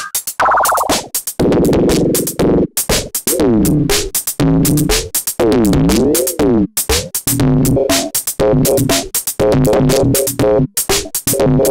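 Drum-machine beat playing through a Moog Moogerfooger MF-102 ring modulator, its pitched ring-modulated tone sweeping down and up, then stepping and warbling as the LFO knobs are turned. The repaired unit is working normally.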